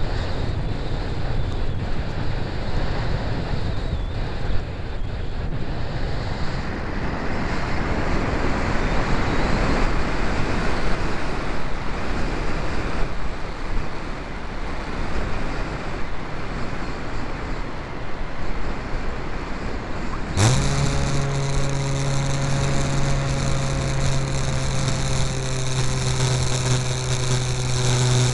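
Steady rush of air over a model airplane's onboard camera while it glides with the motor off. About two-thirds of the way in, the motor starts suddenly, its pitch rising quickly, and then runs at a steady pitch as a low hum with higher overtones.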